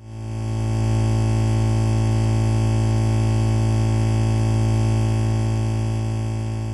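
Electrical buzz sound effect: a loud, steady hum with a strong low tone and a dense stack of overtones, starting suddenly and slowly fading near the end.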